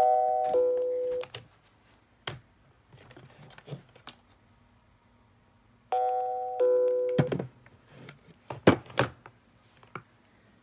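Panasonic 2.4 GHz cordless phone ringing for an incoming call: a two-note chime stepping down from a higher tone to a lower one, sounding twice, at the start and about six seconds in. Sharp clicks and knocks fall between the rings.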